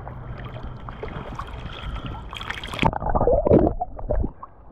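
Water splashing and gurgling over a GoPro's microphone as the camera dips into the surface, with a sharp splash about halfway through. Near the end the sound drops and turns muffled as the housing goes under.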